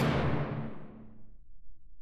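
Background music ending on a final chord that dies away over about a second and a half, the high notes fading first, leaving only a faint low hum.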